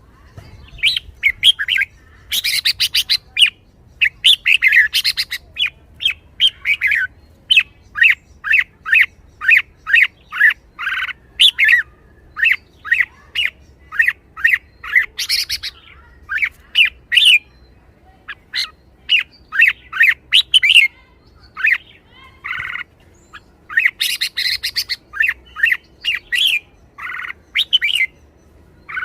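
Red-whiskered bulbul singing and calling: a long run of short, quick whistled notes and phrases mixed with bursts of harsh chatter, pausing briefly now and then.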